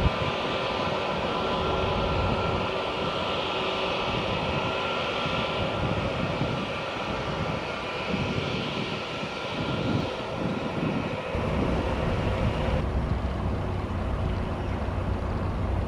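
Airbus A320 airliners' jet engines running as they taxi: a steady whine over a hiss. Wind buffets the microphone in the middle, and the upper hiss drops away abruptly near the end as a quieter engine sound takes over.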